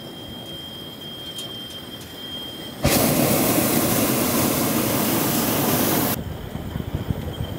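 Hot air balloon's propane burner fired in one blast of about three seconds, loud and even, switching on and off abruptly, heard from the basket.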